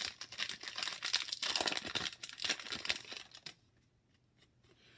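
Foil trading-card pack wrapper being torn open and crinkled in the hands, a dense run of crinkling that stops about three and a half seconds in.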